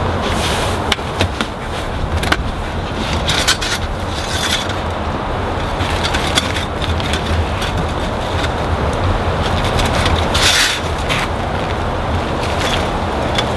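Steady engine running with a low hum, with short metallic clicks and scrapes from a screwdriver loosening a worm-drive hose clamp on a diesel truck's air-intake pipe.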